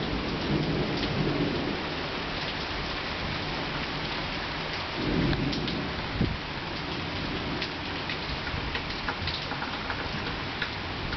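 Heavy summer rain pattering steadily on surfaces during a thunderstorm, with rolling thunder rumbling low near the start and again about five seconds in. Sharp ticks of single raindrops come now and then.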